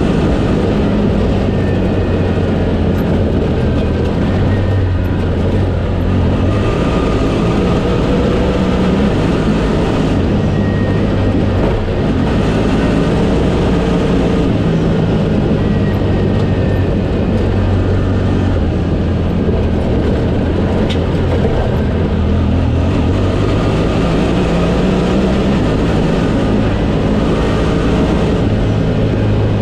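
Honda Talon side-by-side's 999 cc parallel-twin engine running while driving a dirt trail, its pitch rising and falling with the throttle over a steady rush of wind and tyre noise.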